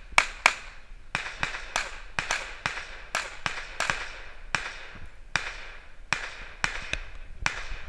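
A string of about twenty gunshots from a shooter running a match stage, heard from a distance, each a sharp crack with a short echo, fired in quick runs with brief pauses between.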